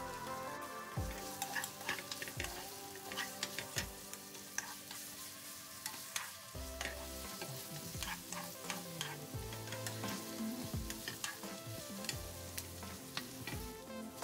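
Tofu slices and sliced chili peppers sizzling in chili-oil sauce in a nonstick frying pan, with a spatula stirring and clicking against the pan many times. Light background music plays underneath.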